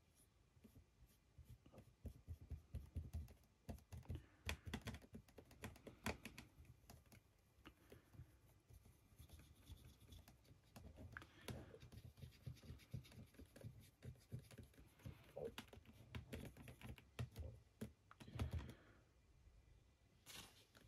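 Faint scattered clicks, taps and scratches of a paintbrush and fingers handling a 3D-printed figure on a cutting mat, with a brief scrape near the end.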